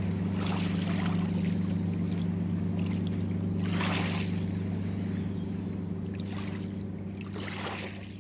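Steady low drone of a river barge's engine, with water lapping and splashing in short washes every few seconds; the sound slowly fades out in the last few seconds.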